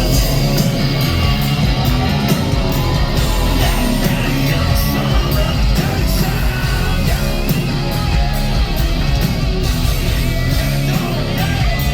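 Live rock band playing loud, with heavy distorted electric guitars, bass and drums, amplified through a concert PA.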